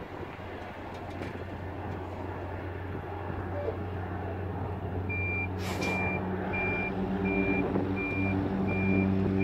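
A steady engine drone grows slowly louder. From about halfway, a high-pitched reversing alarm beeps about twice a second, seven times, while a deeper engine hum joins in.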